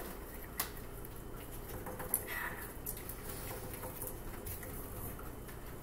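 Quiet room with a steady low hum and a few faint, short clicks and taps, one sharper about two seconds in.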